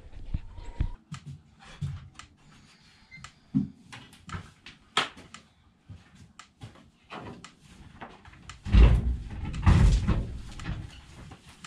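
Wooden barn gate being handled and opened: scattered clicks and knocks, then a run of heavy thumps about nine to ten seconds in.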